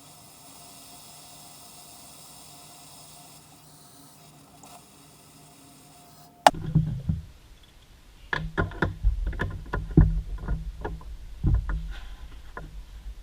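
A faint steady hum for about six seconds, then a sudden change to a run of irregular knocks and clunks over a low rumble, as motorcycle fork parts are worked on by hand.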